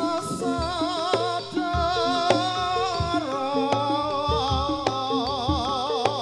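Jaranan gamelan music played live: a held, wavering high melody over stepping notes on struck metal percussion, with low drum strokes and a sharp accent every second or so.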